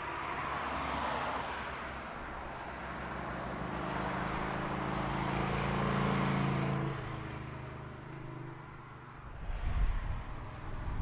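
Audi R8 V10 Spyder's 5.2-litre V10 engine running at a steady pitch, growing louder to about six seconds in, then its note drops away suddenly about a second later. Wind buffets the microphone near the end.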